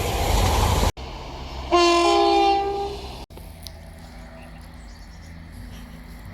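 Train horns: the loud tail of a passing train cuts off just under a second in, then a short two-tone horn blast sounds, a lower note stepping up to a higher one, for about a second. After another sudden cut, a quieter low steady engine hum runs on.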